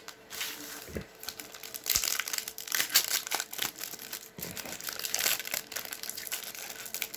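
Foil trading-card pack wrapper crinkling and tearing as a hockey card pack is opened and the cards are handled: a continuous run of irregular dry crackles.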